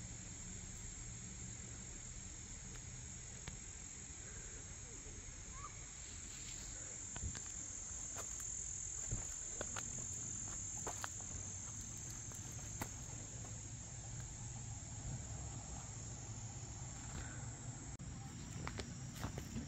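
Steady, high-pitched chorus of summer insects trilling without a break, with scattered faint clicks and light footsteps near the end.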